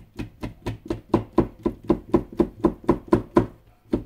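Kitchen knife slicing a folded egg crepe into thin strips, striking the cutting board in a steady rhythm of about four cuts a second, with a brief pause near the end.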